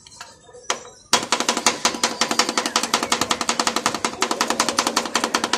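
Two metal spatulas chopping ice cream on a metal cold pan for Thai rolled ice cream. After a single strike, a fast, even clatter of metal striking metal starts about a second in and keeps going.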